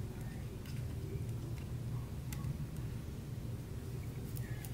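A few faint, scattered clicks of small folding-knife parts being handled and fitted together as a scale is set onto the knife, over a steady low hum.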